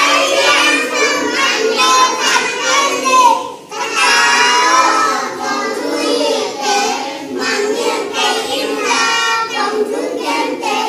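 Young children singing, with a short break about three and a half seconds in before the singing resumes.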